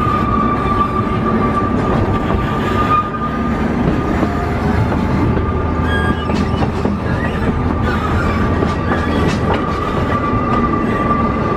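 Oigawa Railway Ikawa Line passenger coaches running on jointed track, heard through an open window. The wheels click over the rail joints under a steady running rumble, and a steady high squeal from the wheels holds throughout as the train rounds a curve.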